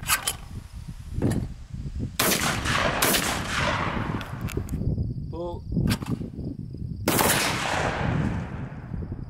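Shotguns firing at clay targets: several blasts, the loudest about two, three and seven seconds in, each followed by a long echoing tail.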